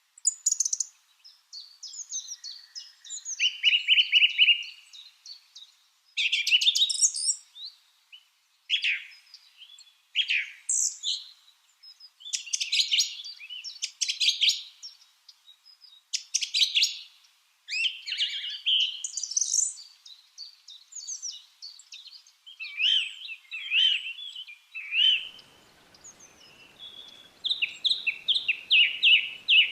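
Lovebirds chirping and chattering: a steady run of sharp, high chirps and fast trills with brief pauses between them.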